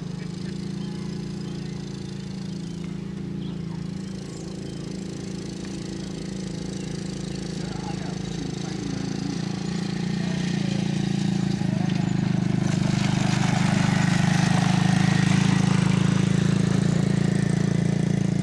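A steady low mechanical hum, like a running engine, getting louder and noisier about two-thirds of the way through.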